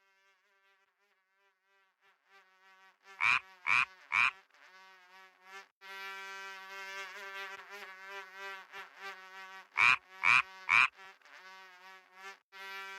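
Frogs croaking: loud croaks in sets of three, about three seconds in and again about ten seconds in, over a steady buzzing chorus that fades in from near silence during the first few seconds.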